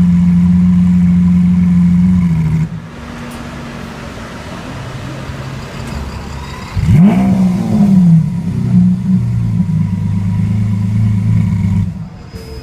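Lamborghini Aventador V12 engine running steadily, dropping back about two and a half seconds in. About seven seconds in, a quick rev rises sharply and falls away, and the engine then holds a steady note again before dropping back near the end.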